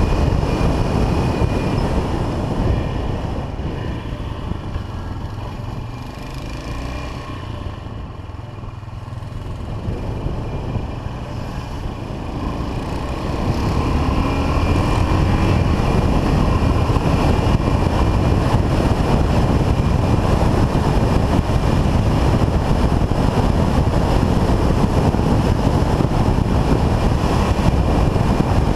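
Yamaha XT 500's single-cylinder four-stroke engine running as the motorcycle is ridden, with wind noise on the microphone. It eases off and quietens a few seconds in, then picks up again from about thirteen seconds and runs louder and steady.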